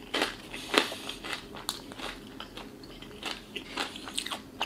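Close-up chewing of a bite of Popeyes fried chicken thigh, the crispy breading crunching and crackling. The loudest crunches come in the first second, followed by a run of softer ones.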